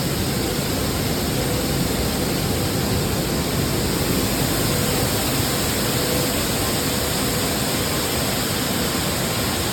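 Maize milling plant machinery running with a loud, steady, unbroken noise.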